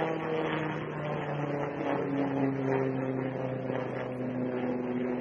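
Aircraft engines droning steadily during a low flypast, the pitch falling slowly as it passes.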